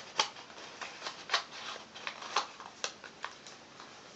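Origami paper rustling and crinkling as a folded paper model is worked back into a cube by hand, with a string of irregular sharp crackles.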